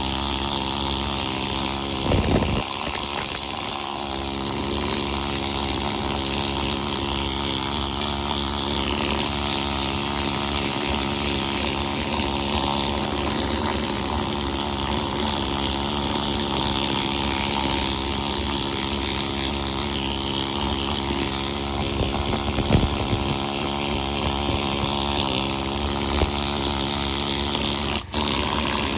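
Pneumatic needle scaler hammering rapidly and steadily against the rusty steel of a 14-bolt differential, chipping off loose rust scale. It breaks off for a moment near the end.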